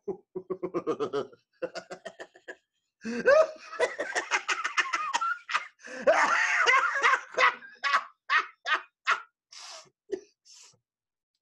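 A man laughing heartily. It starts with a few quick chuckles, breaks into a long, loud fit of laughter about three seconds in, and trails off into separate breathy laughs that fade out.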